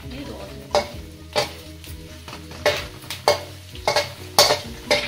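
Metal spatula scraping and knocking against a wide aluminium kadai while stirring onions, chana dal, dried red chillies and curry leaves as they sizzle in the pan. There are about seven sharp scrapes, roughly one every half second to a second.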